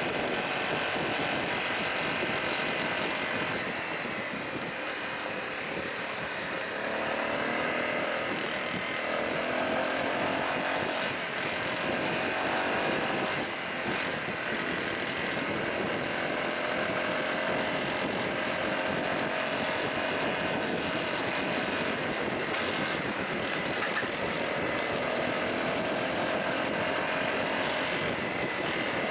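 Honda CRF250L single-cylinder engine running under way at a steady cruise, with the rush of wind and gravel road noise. The engine note eases briefly a few seconds in and picks up again.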